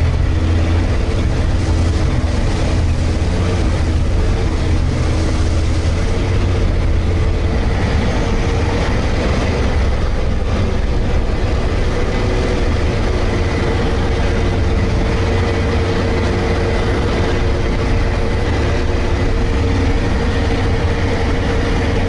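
All-terrain vehicle's engine running steadily: a continuous deep drone with a steady, higher hum above it.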